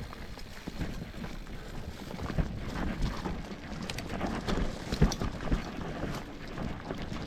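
Mountain bike riding over a rough trail: rumbling tyres and rattling knocks as the bike goes over rocks and roots, with wind on the microphone. A few sharper knocks stand out, the loudest about five seconds in.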